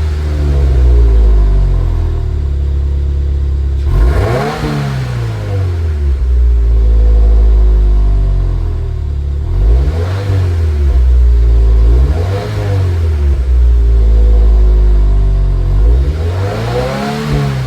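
2022 Subaru WRX's 2.4-litre turbocharged flat-four running through a freshly fitted aftermarket axle-back exhaust, idling and revved four times. Each blip rises and falls in pitch. The note is much louder than the very quiet stock exhaust.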